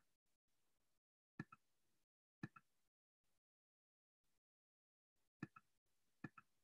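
Near silence, broken by a few faint sharp clicks, mostly in quick pairs about a second or more apart.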